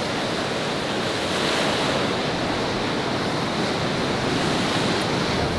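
Ocean surf breaking, a steady rushing hiss with some wind.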